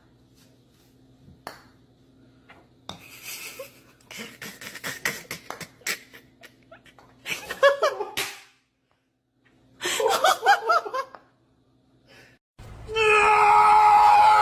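People laughing in two short bursts, among scattered clicks and knocks, followed near the end by a loud, steady, sustained pitched sound.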